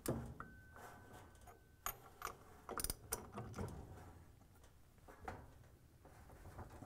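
Faint, irregular metallic clicks and clinks of a socket wrench and an adjustable wrench on the nut that holds the flywheel on a dryer drive motor's shaft, as the nut is tightened.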